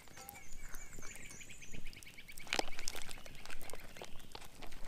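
Wood campfire crackling with scattered sharp pops. A rapid run of repeated high notes lasts for about the first two and a half seconds, and a louder knock comes about two and a half seconds in.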